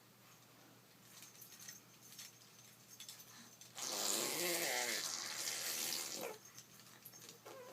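A person making a vocal sound effect: a loud hissing, gushing rush with a wavering voiced tone under it, like water running from a tap, lasting about two seconds from about halfway in. A few faint clicks come before it.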